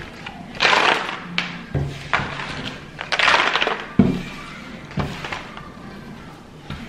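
Cardboard jigsaw puzzle pieces being broken apart by hand and swept across a wooden tabletop: a few short bursts of rustling clatter, with a sharp knock about four seconds in.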